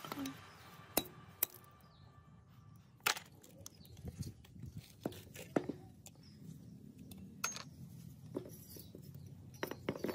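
Steel forklift parts and hand tools clinking and knocking now and then as a rusty pivot assembly is handled and taken apart by hand. The strikes are sharp, single and irregular, about ten of them.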